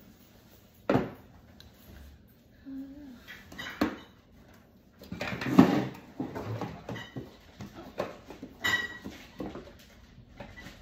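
Irregular knocks and clatter of a hard black plastic tray being handled and set down, with rustling body movement; the loudest clatter comes about halfway through.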